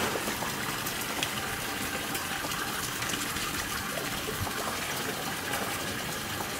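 Steady rush of running water during a dog's bath at a grooming table, with small scattered splashes and ticks.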